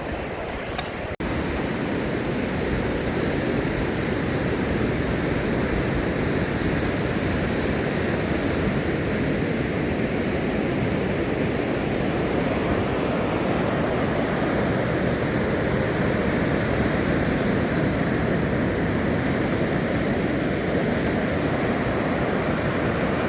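Ocean surf, a steady rushing wash of waves.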